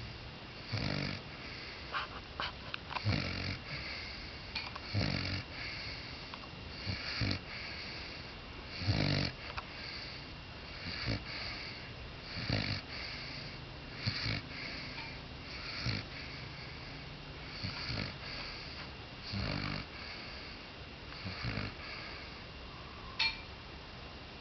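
Six-month-old redbone coonhound puppy snoring in his sleep, a short snore about every two seconds. A single sharp click near the end.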